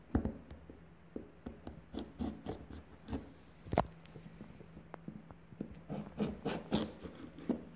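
Knife blade scraping and cutting along the sealed edges of a cardboard phone box in a run of short, irregular scratching strokes. The loudest strokes come near the middle and in a quick cluster near the end.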